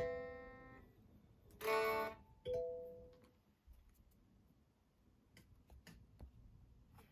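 Guitar: a strummed chord ringing out and dying away, a second chord strummed about a second and a half in, and a single plucked note just after, followed by a few faint clicks.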